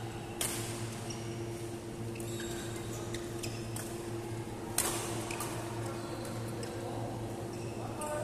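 Badminton rally: rackets strike the shuttlecock with sharp hits, the two loudest about half a second in and nearly five seconds in, with lighter hits between. Shoes squeak on the court floor. A steady hum runs underneath.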